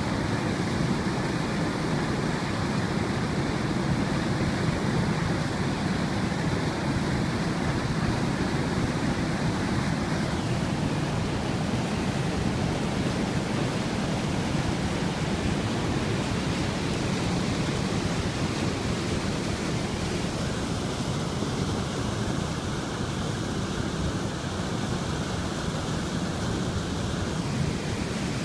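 Floodwater pouring over a river weir and churning in the white water below: a steady, unbroken rush of water.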